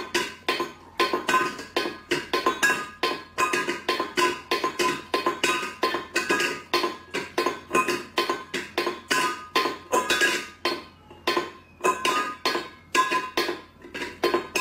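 Stainless steel pet bowl being pushed about on a tile floor by a cat: a continuous, irregular run of sharp metallic clinks, about two or three a second, each ringing briefly.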